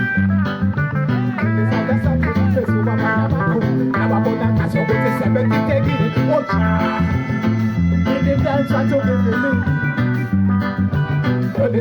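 Band jamming an instrumental passage: guitar lines over a repeating bass line.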